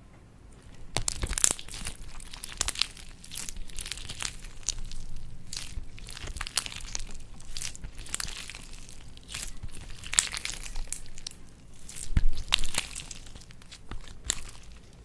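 Slime being squeezed and worked by hand, giving dense crackling, crunching clicks and pops. It starts about a second in and peaks in a louder burst of crunches near the end.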